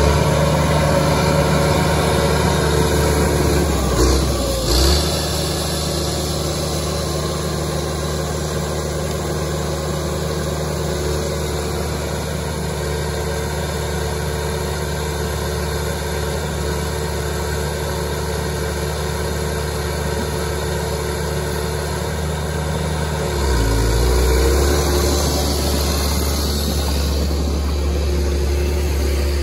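Diesel engine of a John Deere logging machine running steadily, with a couple of brief knocks a few seconds in. About three quarters of the way through its note shifts deeper and a little louder.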